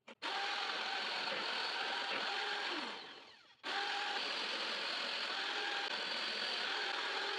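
Electric power tool motor switched on and running steadily, then briefly let off so it spins down with a falling pitch about three seconds in, and switched on again.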